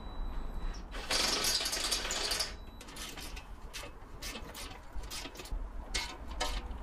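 Hand-held drill running and boring through a rusty metal plate, loudest about a second in, then a ratchet clicking in short bursts as a bolt through the plate is tightened.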